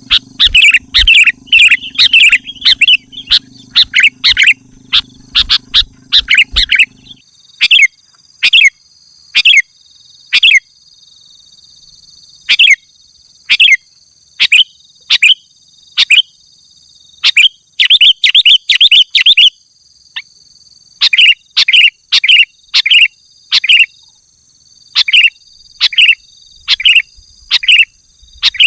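Sooty-headed bulbul (kutilang) singing vigorously: short, loud chirping phrases come in quick runs with brief pauses between them. A faint steady high ringing tone runs behind the song throughout.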